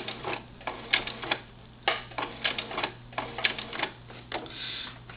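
Singer Futura sewing machine stitching slowly in short runs, the needle mechanism clicking in irregular clusters over a steady low hum.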